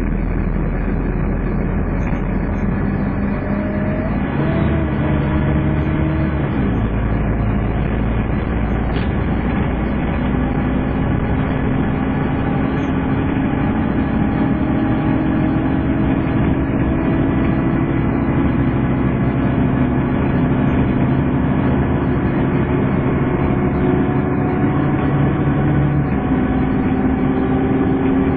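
Scania N230UD double-decker bus heard on board: its five-cylinder diesel engine and driveline running with the whistling 'hoover' whine. The tones slowly rise as the bus gathers speed, then step in pitch near the end.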